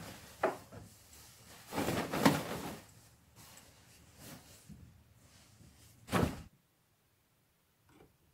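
Orange nylon sleeping bag rustling and swishing as it is shaken and bundled up by hand, in a few loud swishes with softer rustling between. The sound cuts off suddenly about six and a half seconds in.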